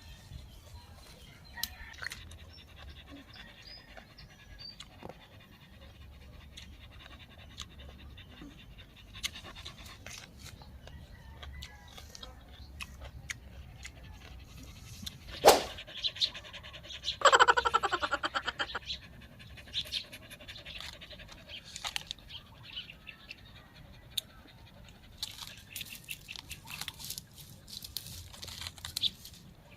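Close-up mouth sounds of a person eating fresh vegetables: wet chewing and smacking with scattered small clicks. There is one sharp click about halfway through and a short, rapid rattling burst a couple of seconds later.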